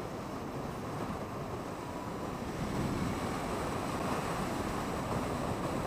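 Wind rushing over a helmet microphone while riding a Zero FX electric motorcycle at speed, a steady rush that gets a little louder about three seconds in.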